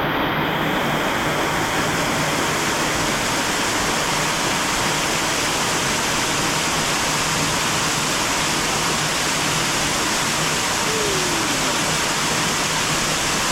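Small waterfall splashing: a loud, steady, even rush of falling water that cuts off suddenly at the very end.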